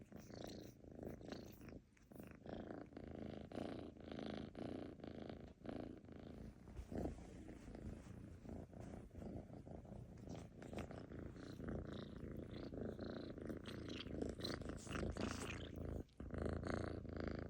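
Domestic cat purring continuously, pausing briefly about two seconds in and again near the end.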